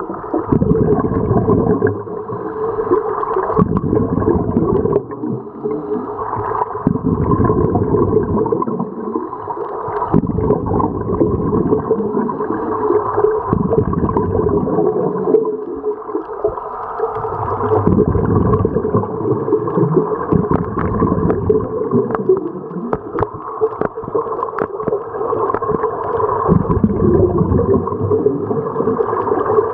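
Scuba divers' regulator exhaust bubbling and rushing underwater, heard muffled, swelling and easing every few seconds with each breath.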